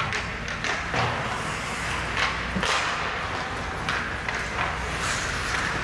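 Ice hockey skates scraping and carving the ice, with several sharp clacks of sticks on the puck.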